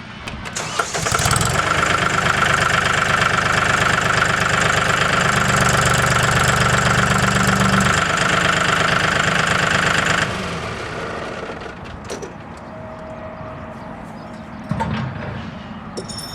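Mahindra 4035 tractor's diesel engine run up while the loader hydraulics raise the loader and roll the bucket, with a steady high whine over the engine. About ten seconds in it drops back to a quieter idle, and a short knock follows near the end.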